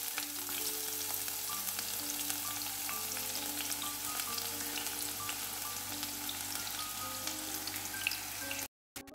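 Chopped spring onion whites sizzling and crackling in hot oil in a pan. The sizzle cuts off suddenly near the end.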